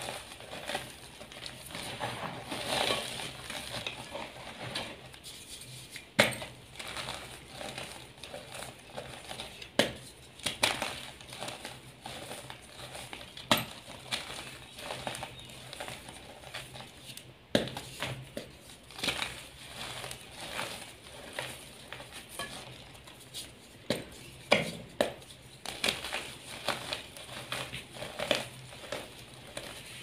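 Hands crushing and crumbling dyed gym chalk blocks into loose chalk powder: dry, irregular crunching with frequent sharp snaps as chunks break apart.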